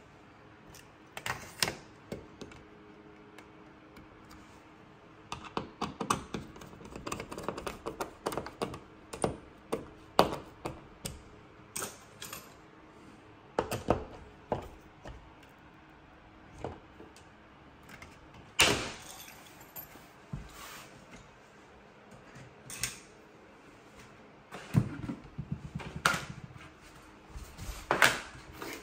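Irregular clicks, taps and knocks of hard parts being handled, with a dense run of quick clicks about a quarter of the way in and a few louder single knocks.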